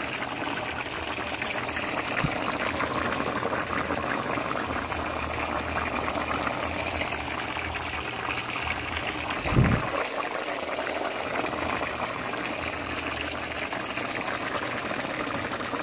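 Brown stew chicken bubbling at a steady boil in an open pot as the gravy cooks down to thicken. There is one dull thump about ten seconds in.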